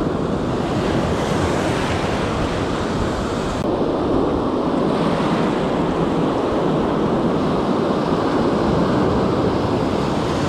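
Ocean surf washing in the shallows and waves breaking, a steady rush of water with wind buffeting the microphone.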